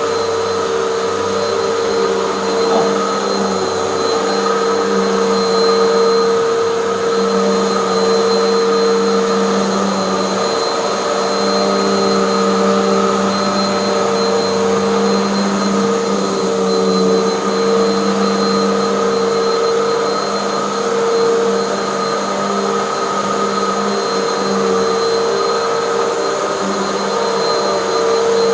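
Hoover bagless vacuum cleaner running steadily, its motor giving a constant whine over a rush of airflow, with small swells in level.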